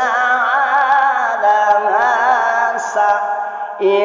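Male qari reciting the Quran in the melodic, sung style: one long, ornamented vocal line whose pitch wavers and turns, held on a single breath, with a new phrase starting just before the end.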